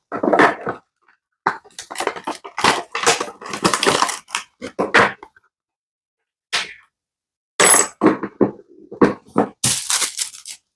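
Unboxing handling noises: packaging and small accessories being moved about and set down, in irregular crackles, rustles and knocks, with a short pause in the middle.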